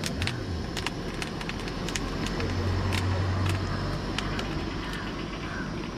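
Corn cob roasting on the grate of a gas burner, crackling with scattered sharp clicks over a steady background. A low engine hum swells and fades in the middle: a vehicle passing on the road.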